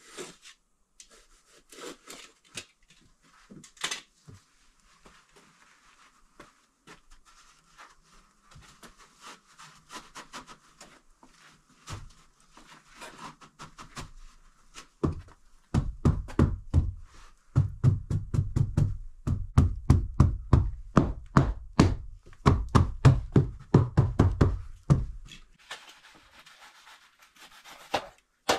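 Rustling and light knocks as rock wool slabs are handled and fitted into wooden framing. About halfway in, this gives way to some ten seconds of rapid, heavy knocking on the wood, several blows a second, which stops a few seconds before the end.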